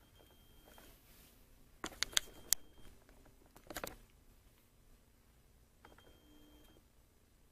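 Quiet room tone broken by a few sharp clicks about two seconds in and a short crackle near four seconds, with faint brief high tones in between.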